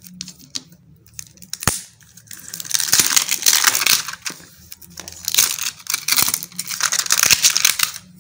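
Clear plastic wrap being torn and peeled off a phone box, crinkling loudly in long stretches from about three seconds in, after a few small clicks and a sharp snap in the first two seconds.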